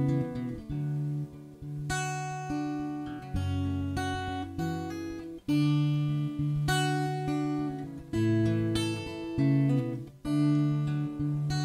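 Acoustic guitar played solo, plucked and strummed chords ringing out, a new chord every second or two with no voice.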